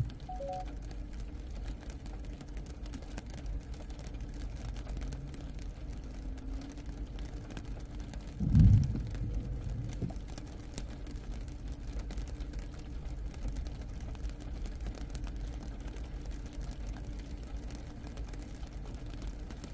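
Distant thunder: one low rumble with a sharp start about eight and a half seconds in, fading over a second or two, over a steady low background rumble.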